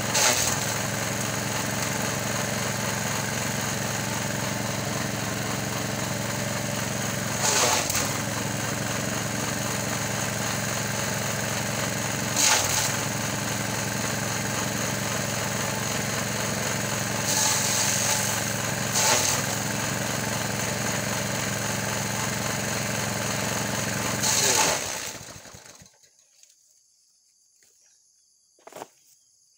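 Small gasoline engine running a forage chopper steadily, with six short loud shredding surges as bundles of green fodder stalks are fed in and cut. The engine stops about 25 seconds in, leaving near silence with a few faint knocks.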